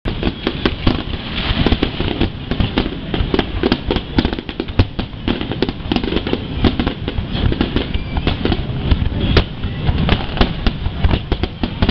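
Aerial firework shells bursting in a dense barrage: many sharp bangs, several a second, over a continuous low rumble.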